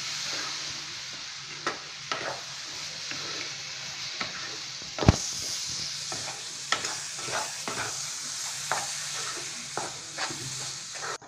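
A spatula stirring and scraping a thick semolina, coconut and khoa mixture in a non-stick pan over the flame, over a steady frying sizzle, with one sharp knock about five seconds in. The mixture is being cooked down until it turns dry.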